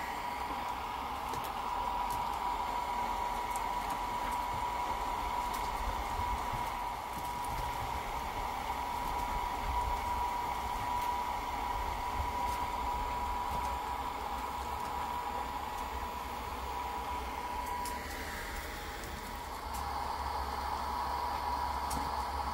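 Small electric bubble machine's fan motor whirring steadily with a high whine. It drops out briefly about eighteen seconds in, then starts again.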